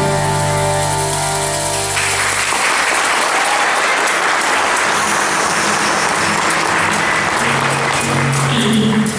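A song with accompaniment ends on a held final chord, then an audience claps and cheers. Music starts up again near the end.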